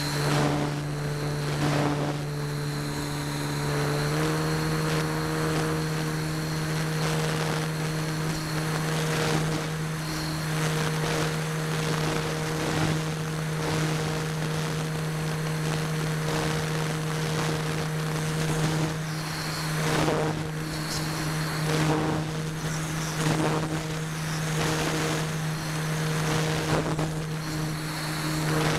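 Parkzone Radian's Firepower 10 electric motor and propeller running steadily under power, a constant hum that steps up slightly in pitch about four seconds in. Air rushes and gusts over the onboard microphone throughout.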